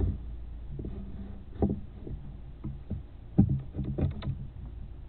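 Handling noise: a few irregular knocks and bumps over a low rumble, the loudest about one and a half seconds in and another cluster past the three-second mark.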